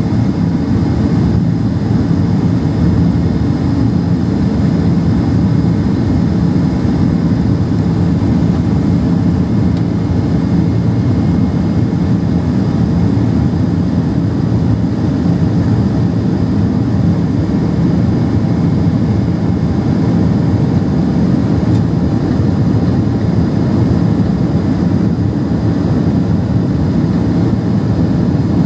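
Boeing 767-300ER jet engines running at climb power shortly after takeoff, heard inside the cabin near the wing as a steady, deep roar that does not change.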